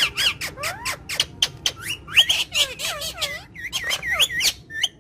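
Yellow-and-green parrots chattering: a dense run of short clicks and quick rising-and-falling squawks and chirps, several calls overlapping.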